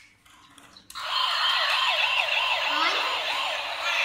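Electronic siren from a toy police car's small speaker: a fast repeating yelp, about three sweeps a second, starting about a second in.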